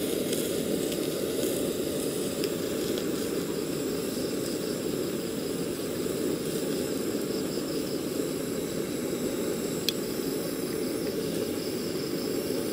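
Handheld butane kitchen torch burning with a steady, unbroken hissing rush of flame, played over cheddar cheese on a beef patty to melt it.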